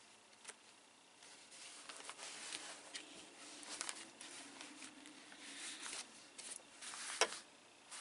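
Cloth bags rustling as they are handled and one is drawn out of the other, with scattered light clicks and a sharper click near the end.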